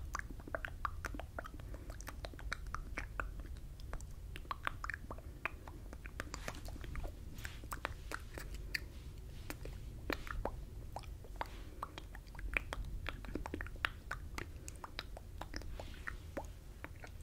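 Close-miked mouth sounds: the wet lip smacks and tongue clicks of words mouthed without voice, an irregular stream of soft clicks.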